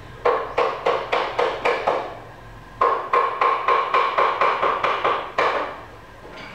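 Rapid knocking with a hollow ring, in two runs of about three or four knocks a second, the second run starting after a short pause near the middle.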